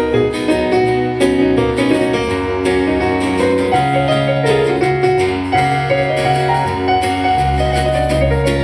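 Live band playing an instrumental passage led by piano, with a steady bass line and drum and cymbal hits.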